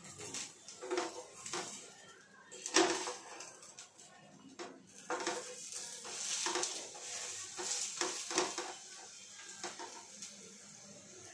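Wooden spatula knocking and scraping against a frying pan as a wheat adai is turned and pressed, in irregular clicks with the loudest knock about three seconds in.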